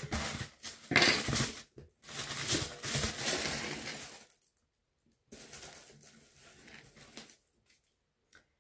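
Parcel packaging rustling and crinkling as it is unpacked by hand, in several bursts over the first four seconds, then fainter handling after a brief pause.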